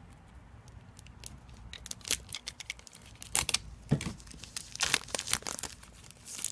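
Clear plastic shrink-wrap crinkling and tearing as it is slit and peeled off a small cardboard box. Quiet at first, then a run of sharp crackles from about two seconds in.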